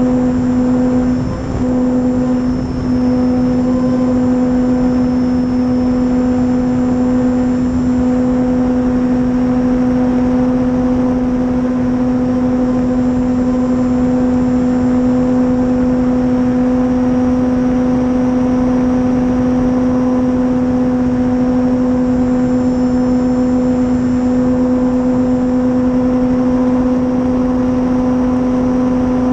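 Electric RC warbird's brushless motor and propeller running at a steady throttle, heard from the onboard camera: a loud, constant drone that holds one pitch, over a noisy rush, with two brief dips in level about 1.5 and 3 seconds in.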